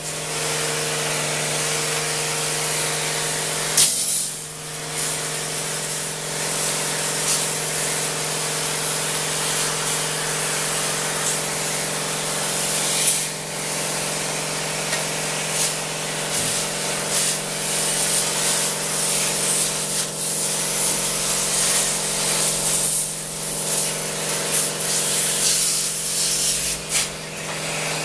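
Battery-powered portable pressure washer spraying diluted air-conditioner cleaning detergent: a steady spray hiss over the pump motor's even hum, with a couple of brief breaks in the spray.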